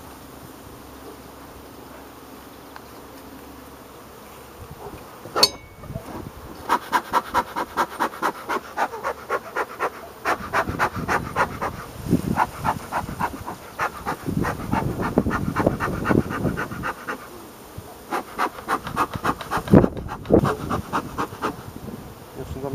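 Bee smoker's bellows pumped in quick, regular puffs, two or three a second, starting about six seconds in and going on with short breaks. Carniolan honeybees hum around the open hive, heard alone at first, and a sharp click comes just before the puffing begins.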